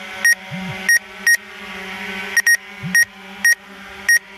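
Electronic beeper giving short, identical high-pitched beeps, roughly one every half second and sometimes in quick pairs, over a steady low hum.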